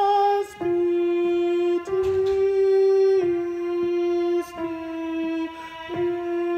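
A solo alto voice singing one choral part unaccompanied: a string of held notes, each a second or so long, with short breaks between them.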